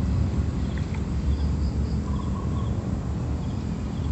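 Riverside ambience: a steady low rumble with birds calling in short repeated chirps and quick high triplets of notes.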